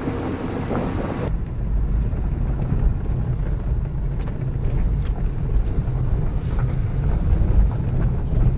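Low, steady rumble of a car driving over a rough dirt track, heard from inside the cabin, with a few faint ticks and rattles.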